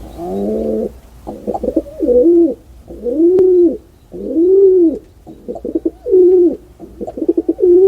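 Pigeon cooing: a run of low coos, each rising and then falling in pitch, with quick stuttering notes between them.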